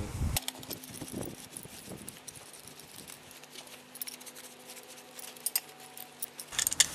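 Gloved hands wiping a steel G-clamp down with a rag and mineral turps, with light rag rustle and scattered small metallic clinks as the clamp is handled in the vise. There are a few sharper clinks near the end.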